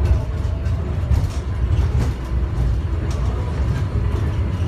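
Airport inter-terminal train running, heard from inside the car: a steady low rumble with a few faint knocks as the car shakes along the track.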